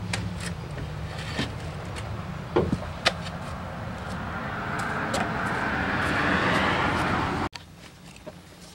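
A passing vehicle's noise swells over a few seconds and is cut off abruptly near the end, over a steady low hum. A few light knocks come early on.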